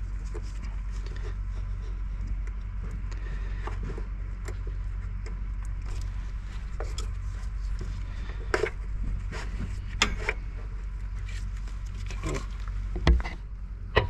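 A diesel fuel injector is worked down into its bore in the cylinder head, making scattered small metallic clicks over a steady low hum. About a second before the end comes a sharp little pop: the injector's O-ring going down into the bore.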